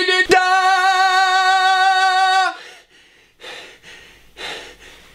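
A loud held note, steady in pitch for about two seconds after a quick stuttered run-in on the same note, then cut off sharply. A few faint short noises follow.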